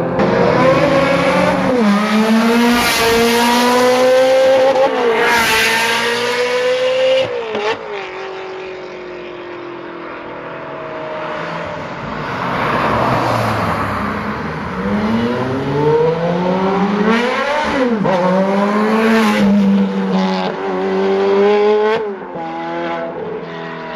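Several Ferrari sports cars pulling away and driving past one after another, their engines revving, the pitch climbing and then dropping again and again. There is a quieter spell with mostly tyre and road noise in the middle before loud revving returns.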